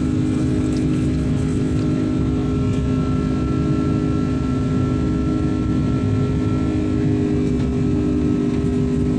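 Airliner cabin noise in flight: the steady drone of the jet engines and air rushing past, with a few steady hum tones; a faint higher whine fades out near the end.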